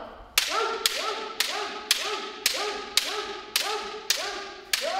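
Kendo kirikaeshi: a bamboo shinai striking in quick left-right men cuts, nine sharp cracks about two a second, each with a short shouted kiai from the striker.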